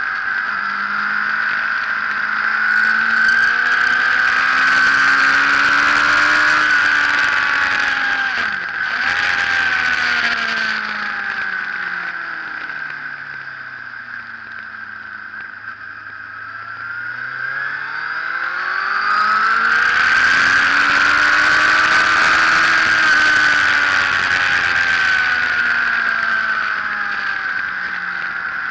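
Sport motorcycle engine under hard acceleration: the revs climb, drop sharply at a gear change about eight and a half seconds in, then fall steadily as the bike slows for a corner around the middle. The revs then climb hard again and ease back slightly near the end.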